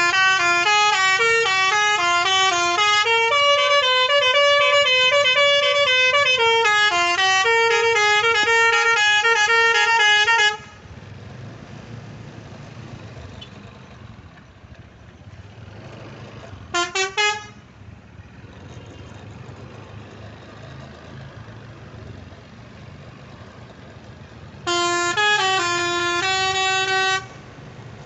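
Bus telolet horn, an Indonesian multi-note air horn, playing a stepping melody for about ten seconds, then three quick toots, then a short melodic phrase near the end. A low engine and road rumble fills the gaps.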